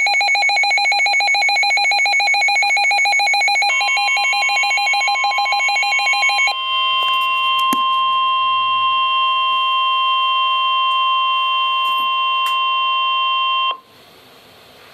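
Emergency Alert System alert tones: a fast pulsing electronic buzz for about six seconds, then a steady alert tone that cuts off abruptly near the end.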